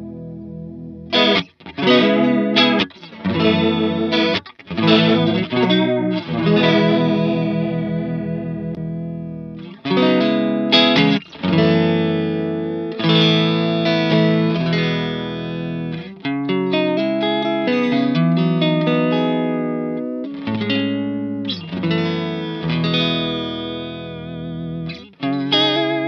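Fender Stratocaster electric guitar played through a Native Audio Pretty Bird Woman chorus vibrato pedal into a Vox AC30 amp with a little overdrive: strummed chords and short phrases, their pitch wavering with the pedal's modulation. The pedal steps through its stored presets along the way.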